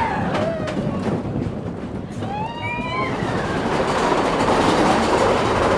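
Mine-train roller coaster cars rattling and clattering along the track, the noise building and holding from about halfway. A few clicks come early, and a short rising squeal sounds about halfway through.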